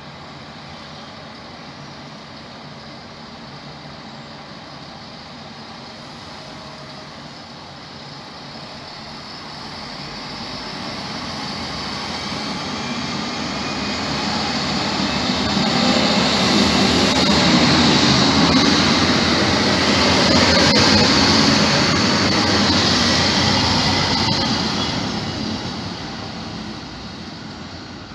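Two coupled diesel railcars of the Regio-Shuttle RS1 type passing by on the track: the engine and wheels-on-rail noise build up over about ten seconds, are loudest in the middle, and fade away near the end as the train moves off.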